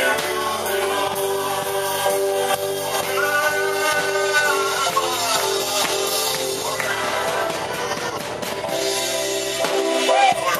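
Gospel worship music in church, with singing over sustained instrumental accompaniment.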